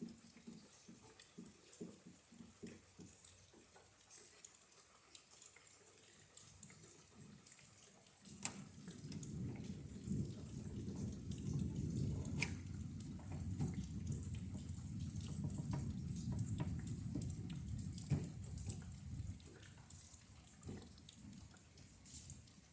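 Rain dripping and pattering, then about eight seconds in a sharp crack of thunder followed by a long low rumble that fades out over about ten seconds.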